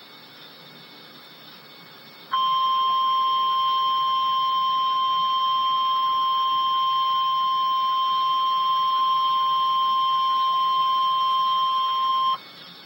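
Weather-radio alert tone: one steady, high single-pitched tone held for about ten seconds, starting a couple of seconds in after faint radio hiss and then cutting off. It is the warning alarm that signals a new weather warning message is about to be broadcast.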